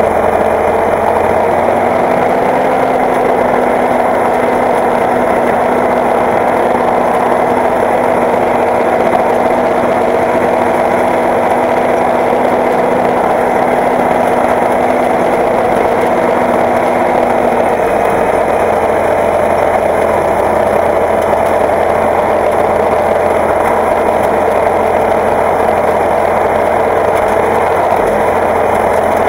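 Tractor diesel engine running at a steady speed, heard loud from inside the cab.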